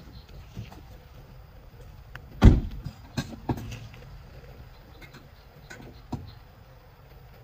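A small electric car's door shutting with one solid thud about two and a half seconds in, followed by a few lighter clicks and knocks.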